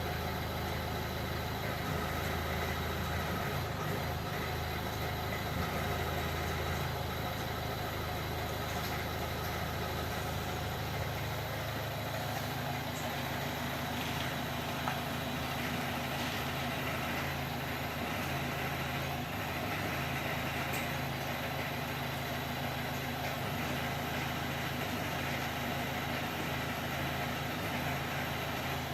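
Car engine idling steadily, with a few faint single knocks, the knocking that grows louder when the steering wheel is turned to full right lock. The low engine note shifts slightly about twelve seconds in.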